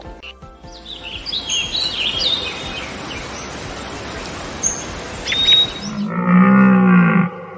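Birds chirping, several short falling calls over a steady hiss, then about six seconds in a loud, low animal call lasting just over a second.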